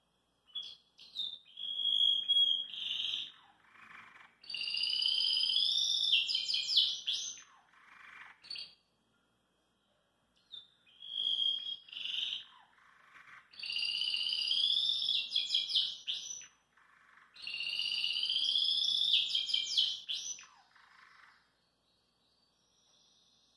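Domestic canary singing in two long bouts of rolling trills and warbled notes, with a short pause between them.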